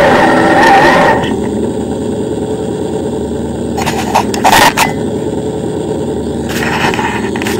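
An RC tracked vehicle's drive running with a wavering whine, stopping about a second in. After that a low steady rumble remains, with a few brief scrapes or knocks around four to five seconds in.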